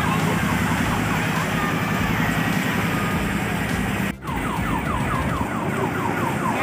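Fairground din: a steady low hum under a repeating electronic warble like a toy siren or car alarm, about four rises a second. There is a brief break about four seconds in.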